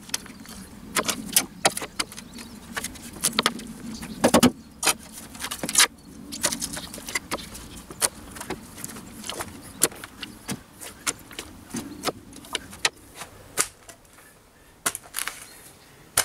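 Metal shovel blade stabbing and scraping into turf and stony soil, cutting away the top layer of grass sod: irregular sharp clinks and scrapes as the blade strikes grit and stones.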